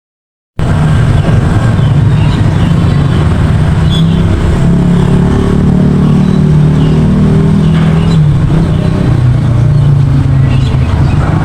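Loud engine running close by, its pitch drifting up and down a little as it revs; it cuts in abruptly about half a second in.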